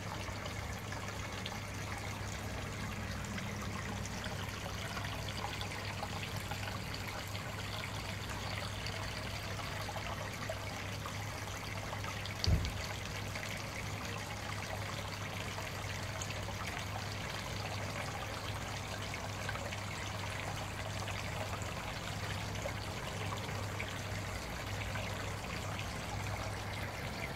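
Steady trickle of water running into a pond, over a steady low hum, with a single thump about halfway through.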